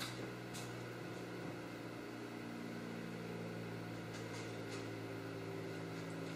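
Drive motor of a gear test rig running with a steady hum, with a few faint light clicks.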